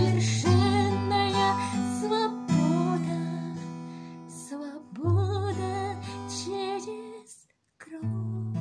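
Song accompaniment with acoustic guitar strumming under a wavering melody line. The music cuts out briefly about seven and a half seconds in, then resumes.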